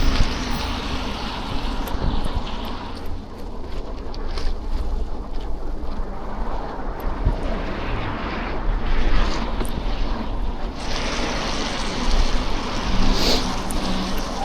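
Wind rumbling on an action camera's microphone on a moving bicycle, over a steady hiss of city street traffic. The hiss rises and falls, thinning out for a few seconds in the middle.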